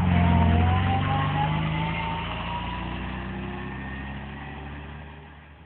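Car engine accelerating and pulling away, rising in pitch early on and then fading steadily until it has gone near the end.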